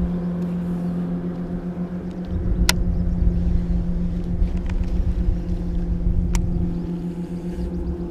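Electric trolling motor running steadily, a constant hum over a low rumble, with a few sharp clicks.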